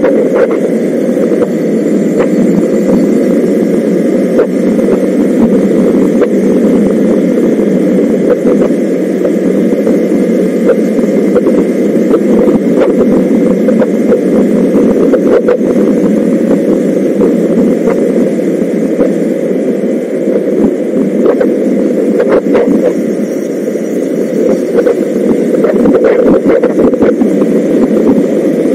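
A single-cylinder 125 cc motorcycle ridden at a steady pace: its engine drone is heard through heavy, steady wind noise on the onboard microphone.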